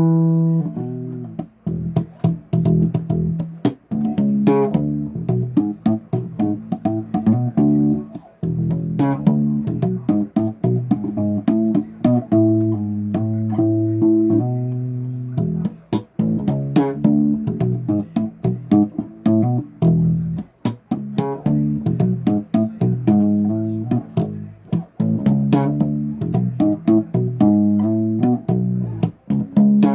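Bass guitar played solo, a steady stream of plucked notes in riffs and runs with sharp finger or fret attacks.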